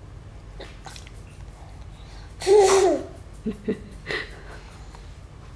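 An 8-month-old baby's voice: one loud, high half-second squeal about two and a half seconds in, followed by three short, quieter sounds.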